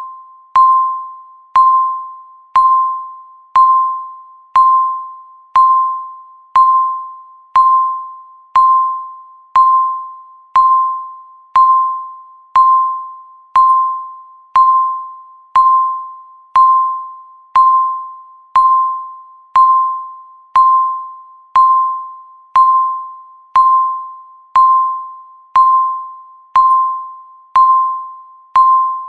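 Countdown timer beep: a single ding at about 1 kHz struck once every second, each ringing and fading away before the next, marking each second counted down.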